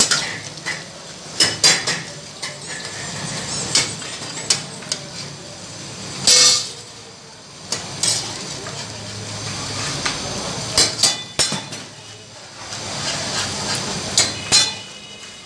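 Metal ladle stirring lamb karahi in a steel wok, with irregular clanks and scrapes against the pan over the sizzle and bubbling of the cooking meat.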